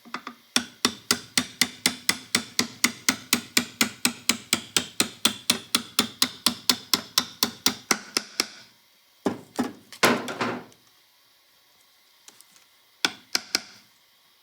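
Metal ratchet clicking rapidly and evenly, about five sharp ringing clicks a second for some eight seconds as a part is turned tight. Then a few separate metal knocks, and a short rattle of clicks near the end.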